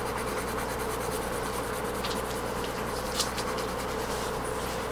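Pencil scratching on drawing paper in quick, repeated shading strokes, laying in the dark tone at the base of an apple drawing, over a steady background hum.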